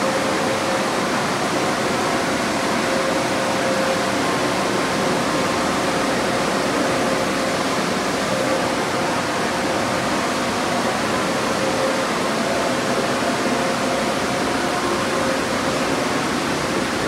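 Onboard dryer blowers of a Magic Wand Nexus touch-free car wash gantry running: a steady, loud rush of blown air with a faint steady hum underneath, unchanging throughout.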